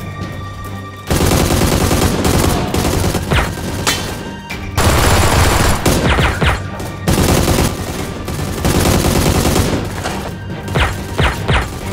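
Dubbed machine-gun sound effects firing in long rapid bursts from about a second in, with short breaks between bursts. Near the end come a few separate shots, some with short falling whines.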